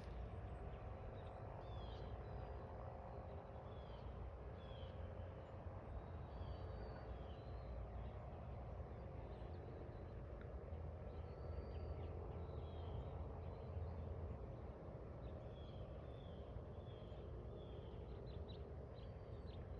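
Small birds chirping: short, high, falling calls, repeated every second or two, over a faint steady low rumble.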